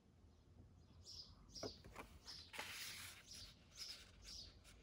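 Faint handling of paper and card as a tag is slid into a journal pocket: a few light clicks, then a short rustle about halfway through. Under it runs faint, repeated high chirping, about two chirps a second.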